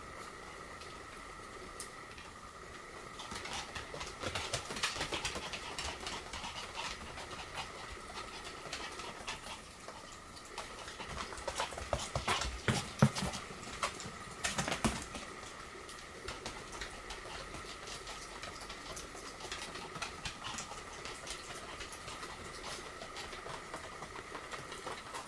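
Pomeranian play-fighting: paws scrabbling and pattering, with short low grumbling growls. It is busiest about four seconds in and again around twelve to fifteen seconds.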